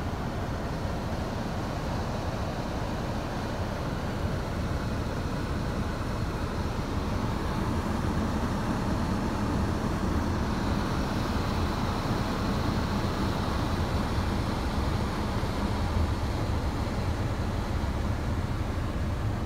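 Steady running noise inside a parked 2014 Kia Forte, with the climate-control fan blowing and the A/C on, growing slightly louder about four seconds in.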